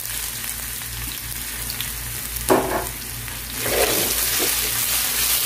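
Ginger and garlic frying in hot oil with mustard seeds in a nonstick pan, a steady sizzle. It gets louder a little past halfway, when a spatula stirs them.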